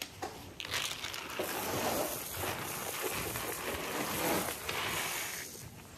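Dry cattle feed rustling and crunching as it is poured and stirred in a cow's feeding place, a continuous hiss that starts about a second in and fades near the end.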